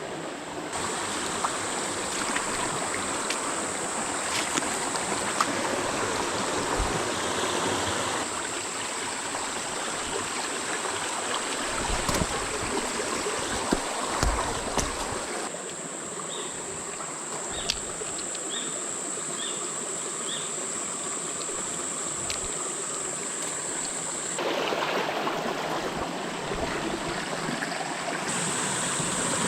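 Small freshwater creek running and trickling over rocks, a steady rush of water. A steady high whine sits over it for most of the time, and a few short chirps come in around the middle.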